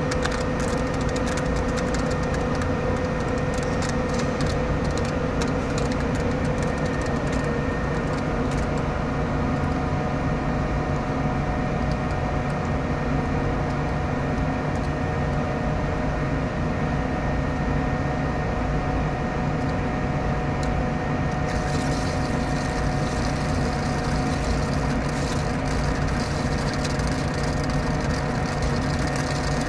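Metal lathe running steadily with a rubber roller spinning between centres: a constant machine hum with several steady whining tones. A light high crackle comes and goes in the first few seconds, and a brighter hiss joins about two-thirds of the way through.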